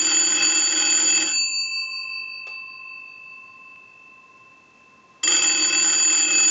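The twin gongs of a Western Electric 250W wall telephone ring on an incoming ring signal from a line analyzer, in the on-off cadence of a phone call. The ringing stops about a second and a half in and the bells ring out as it fades. After a pause of a few seconds the next ring starts about five seconds in.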